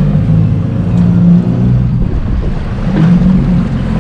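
The fishing boat's motor running unevenly, with wind buffeting the microphone and waves slapping the hull.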